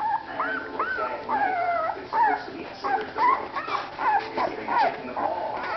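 Newborn Afghan hound puppies squeaking and whimpering while they nurse: many short, overlapping squeaks that rise and fall in pitch.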